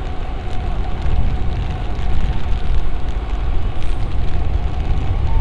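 Steady rain pattering on a city street, with a continuous low rumble underneath, like traffic.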